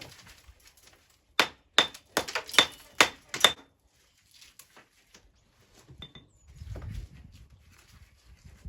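A quick run of sharp taps of a steel tool on stone, each with a brief metallic ring, about one and a half to three and a half seconds in, typical of a trowel or hammer knocking stone into place or trimming it. A soft low rumble follows near the end.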